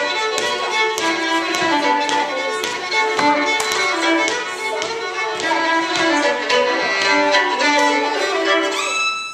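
A fiddle tune playing fast, with sharp percussive taps all through it. The music ends on one long held note near the end.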